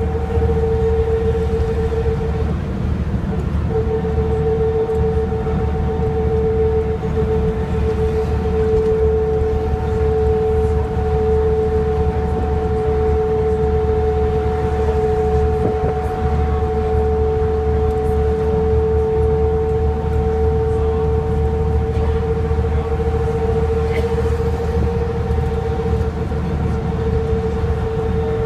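Inside the cabin of an Ikarus 250.59 coach at cruising speed: a steady high whine from the drivetrain, held at nearly one pitch, over the low rumble of the diesel engine and road noise.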